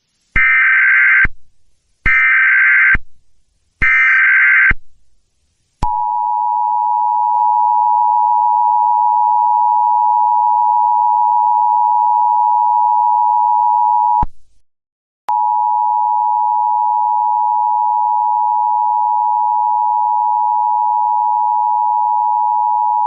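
Emergency Alert System tones: three short bursts of the screeching digital SAME header, then the steady two-tone attention signal held for about eight seconds, which breaks off briefly and then sounds again.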